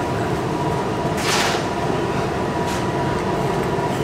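Steady background noise of a restaurant dining room: an even low rumble with a faint hum, and a short burst of hiss just over a second in.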